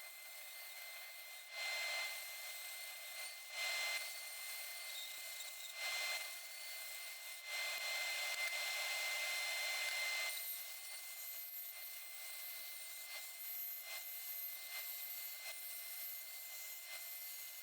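A power tool working a piece of 18 mm MDF in several short bursts, the longest about three seconds, over a steady high whine.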